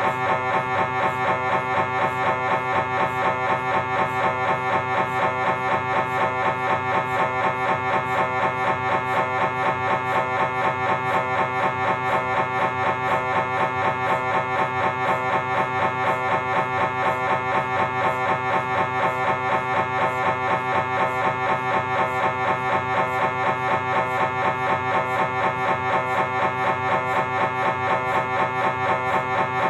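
Philips 1.5-tesla MRI scanner running a T2-weighted transverse lower-spine sequence with DRIVE pulse. Its gradient coils give a loud, pitched buzz that pulses fast and evenly without a break.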